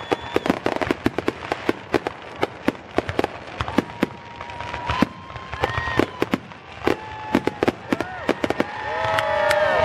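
Fireworks grand finale: a rapid, uneven string of sharp bangs and reports from aerial shells, mixed with whistling shells, some holding a steady pitch and some falling. Near the end several whistles overlap and the noise builds.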